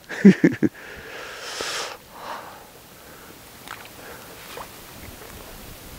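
A man's short chuckle, then a sniff through the nose about a second and a half in; after that only faint small clicks and rustles.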